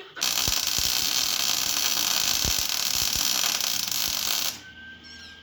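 Welding arc running for about four seconds: a steady hiss with a few sharp pops, starting and stopping abruptly. A nut is being welded onto a snapped-off bolt stub so the bolt can be turned out.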